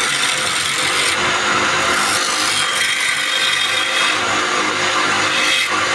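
Wood lathe running with a steady motor hum while a turning tool cuts the spinning wood, the hiss of the cut swelling and easing every second or so.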